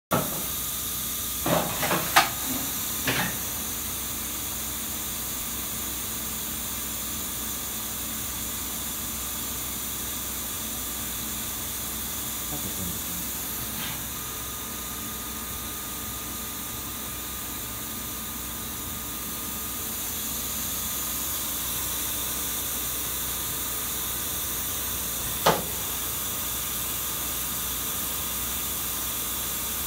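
Steady hiss and hum from a powered-up Kitamura vertical machining centre with a Fanuc CNC, not cutting. A few sharp knocks come in the first few seconds, a faint steady whistle lasts a few seconds in the middle, and a single knock comes near the end.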